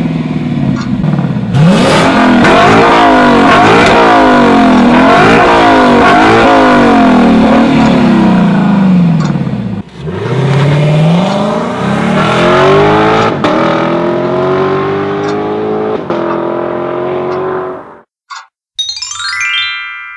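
Lexus LC 500's 5.0-litre V8 revving hard several times, its pitch climbing and dropping with each blip, then pulling steadily up through the revs under acceleration before cutting off near the end. A short rising chime follows.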